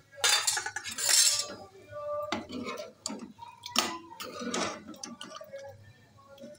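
A metal spoon scraping and clinking against a steel cooking pot while chicken curry is stirred. The scraping is loudest in the first second and a half, followed by repeated clinks and scrapes.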